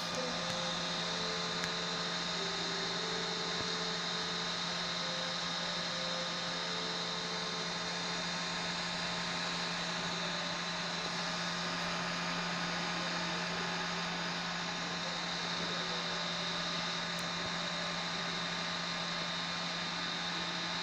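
3D printer running: steady fan hum and hiss, with short tones from the stepper motors that shift in pitch during the first several seconds.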